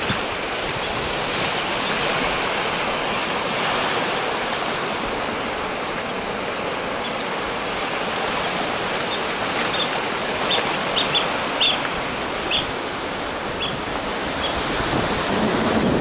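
Steady rush of wind and small waves washing onto a stony shore, with a run of short high clicks in the second half.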